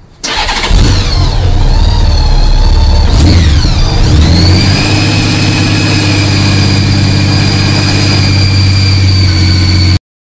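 A motorcycle engine starting up and revving, its pitch sweeping down and back up twice in the first four seconds, then running steadily until it cuts off suddenly near the end.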